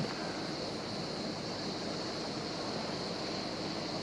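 Steady ambience of wind and sea water, with a faint even high-pitched hiss above it.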